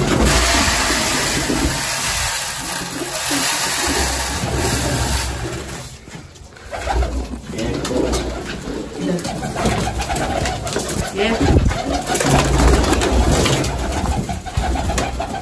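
A flock of domestic pigeons in a loft, cooing, with wings flapping as some flutter off their perches.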